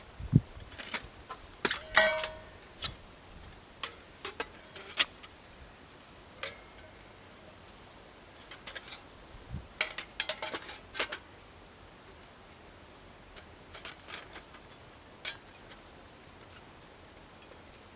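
Irregular light clicks, knocks and metallic clinks of hard objects being handled, with one short ringing clink about two seconds in.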